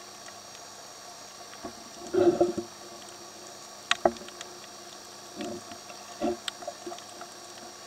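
Underwater sound through a camera housing: a steady faint hiss broken by a few short, irregular bursts of bubbling from a diver's exhaled air, and a sharp click about four seconds in.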